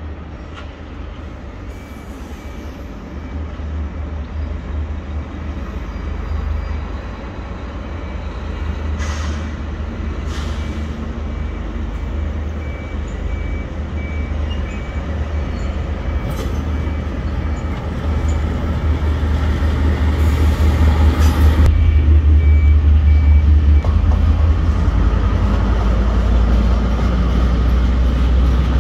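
KiwiRail DL-class diesel-electric locomotive hauling a container train, its engine's deep rumble growing steadily louder as it approaches and passes, loudest about three-quarters of the way through. A faint high beep repeats through much of it, and there are a few short hissing bursts.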